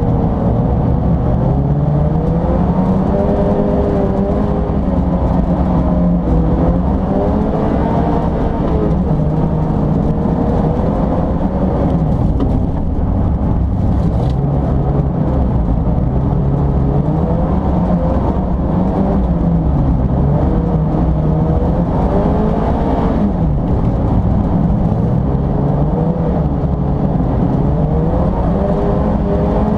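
Mazda MX-5's four-cylinder engine heard from inside the car, revving up and dropping back over and over as it is driven hard through the gears and corners on an ice track.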